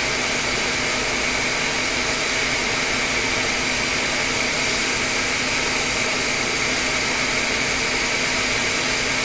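Hot air rework station blowing steadily, a smooth hiss with a faint high whine, as it heats a part to desolder it from a logic board.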